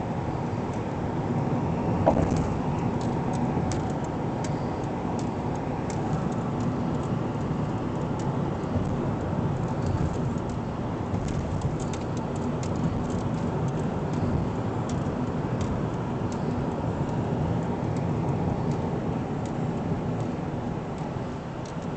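Steady road and engine noise heard inside a vehicle's cabin while driving at highway speed, with a brief knock about two seconds in.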